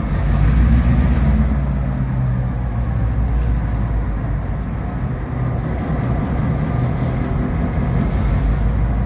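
EMD SD38-2 diesel-electric locomotive's naturally aspirated, Roots-blown 16-cylinder 645 prime mover running under load while loading coal cars, a steady deep drone. It swells slightly in the first second, then holds steady.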